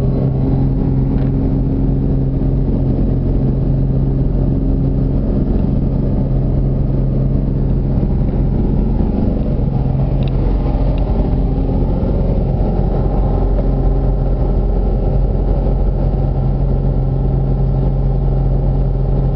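Piston engine and propeller of a Piper light aircraft running at full takeoff power, heard inside the cabin: a loud, steady drone with a strong low hum.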